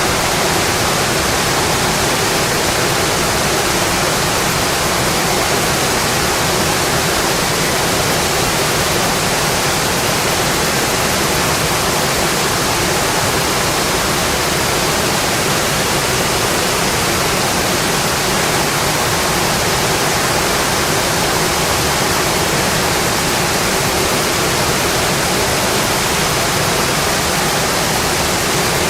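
Steady, dense rainfall, an even rushing hiss with no distinct drops or thunder standing out.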